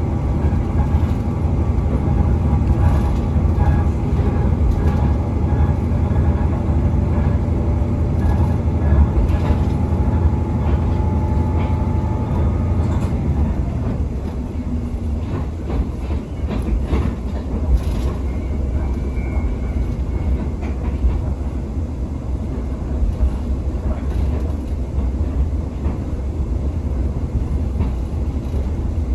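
Tsugaru Railway stove train running, heard from inside a coach: a steady low rumble with a whining tone that fades out about twelve seconds in. A few clacks come in the middle, and the rumble eases a little after that.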